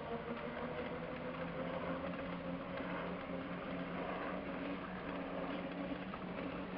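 Electric mobility scooter's drive motor and gearbox humming steadily while riding, with a few steady tones over the rolling noise of its tyres on pavement.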